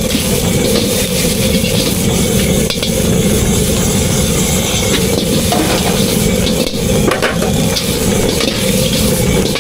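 Street-food cooking: sizzling food over a steady low rumble, with a few light clinks.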